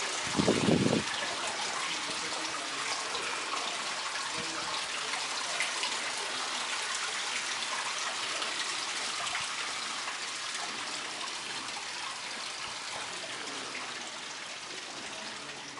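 Water running and trickling steadily, growing a little fainter toward the end. A brief low rumble sounds about half a second in.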